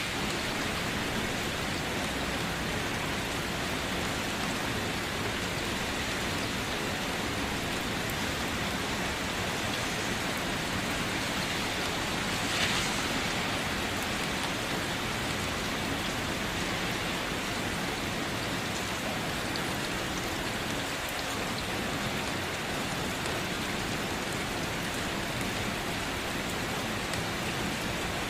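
Steady rain falling and pattering on surfaces, with one brief louder hiss about halfway through.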